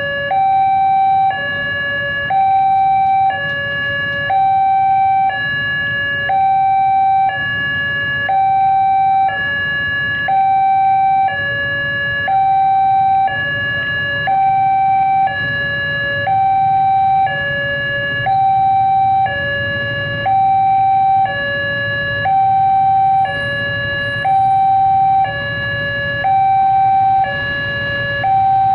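Railway level-crossing warning siren, a newly installed electronic two-tone type, switching back and forth between a higher and a lower tone about once a second. It is the warning that a train is approaching the crossing.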